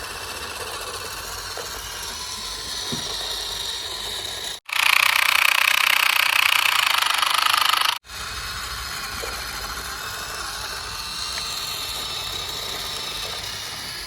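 A steady motor or engine-like running sound, broken by two abrupt cuts into three stretches; the middle stretch, from about a third of the way in to just past halfway, is louder and higher-pitched.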